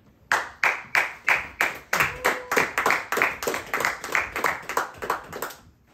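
Hand clapping in a steady, even rhythm, about three claps a second, applauding a draft pick just announced; it stops near the end.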